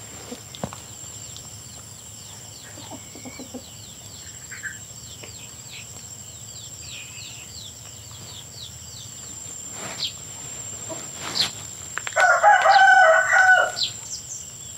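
A rooster crows once, about twelve seconds in, one level call lasting about a second and a half; it is the loudest sound. Underneath are a steady high whine and a run of quick high chirps, about three a second, which fade out before the crow.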